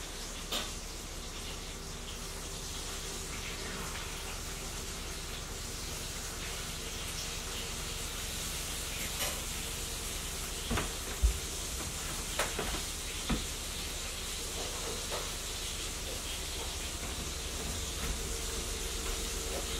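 Steady background hiss with a low hum underneath, broken by a few short clicks and knocks around the middle, one sharper than the rest.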